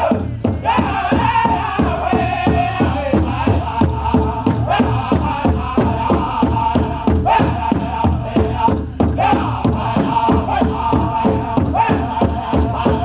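Powwow drum group singing a chicken dance song, several voices together over a fast, steady beat on a big drum at about four beats a second.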